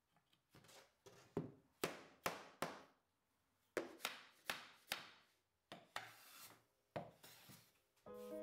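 Hardwood being worked by hand on a workbench: a run of short, sharp wooden strokes, each fading quickly, in quick groups of two to four with short pauses between. Music comes in near the end.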